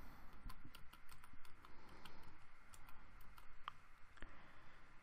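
Typing on a computer keyboard: irregular light key clicks, a few a second.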